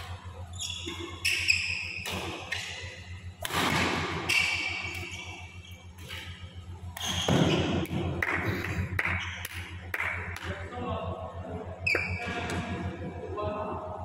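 Badminton play on an indoor court: sharp racket strikes on the shuttlecock and short high shoe squeaks on the court mat, with raised voices twice. A steady low hum sits under it all.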